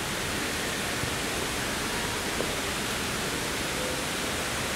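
Steady rush of falling water: a small waterfall pouring into a rock pool.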